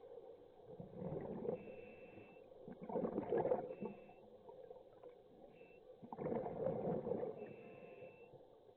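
Scuba diver breathing through a regulator underwater: three surges of exhaled bubbles, a few seconds apart, over a faint steady hum.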